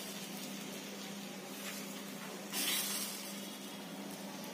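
Beaten egg frying on a hot tawa: a steady sizzle that swells briefly about two and a half seconds in, as bread slices are laid into the egg.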